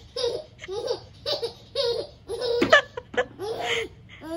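A toddler laughing in a run of short, rhythmic bursts, about two a second, with the loudest burst a little past halfway.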